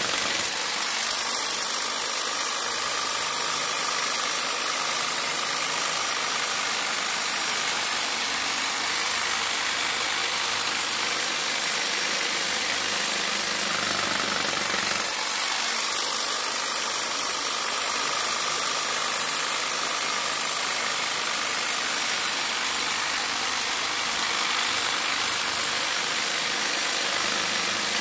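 Electric jigsaw fitted with a long straight cloth-cutter knife blade, its motor running steadily without a break as the blade saws through a block of foam.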